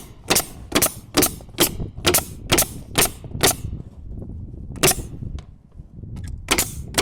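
Pneumatic nail gun firing fasteners through soffit into wooden nailers: sharp shots about two a second, a pause with one more shot, then another rapid run near the end.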